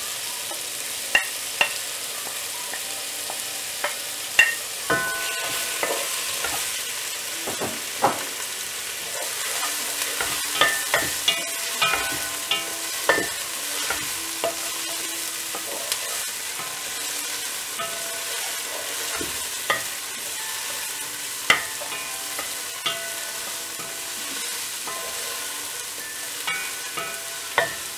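Chopped tomatoes with onion, garlic, ginger and green chillies sizzling in hot oil in a nonstick pan. A wooden spatula stirs them, knocking and scraping against the pan again and again over the steady sizzle.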